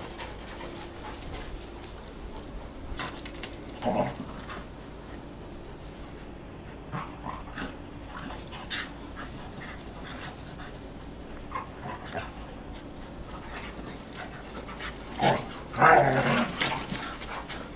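Several dogs play-fighting, with short sudden dog calls here and there: a brief one about four seconds in and the loudest run of them a couple of seconds before the end.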